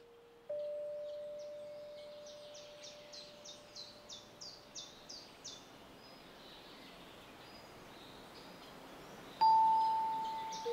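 Two struck, bell-like tones, each ringing and slowly fading: one about half a second in and a higher, louder one about nine seconds in. Between them a bird gives a quick series of short high chirps, about three a second.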